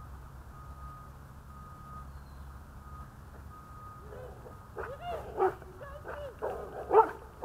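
A dog barking in short yaps that rise and fall in pitch, starting about halfway through and getting louder near the end. Before that, a faint beep repeats about once a second over a low hiss.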